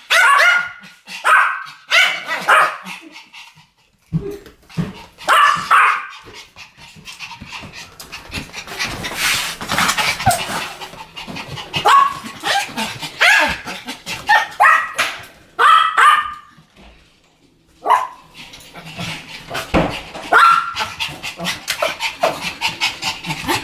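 Two Pomeranians barking together in quick runs of yaps, with short lulls about four seconds in and again a little past the middle.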